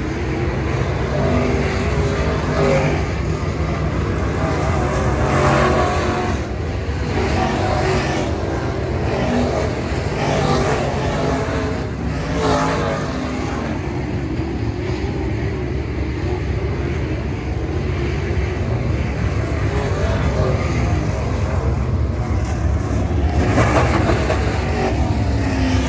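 Engines of dirt-track race cars running hard as a field of cars laps the oval. Louder swells come every few seconds as cars pass close by, at about 2, 5, 10, 12 and 23 seconds in.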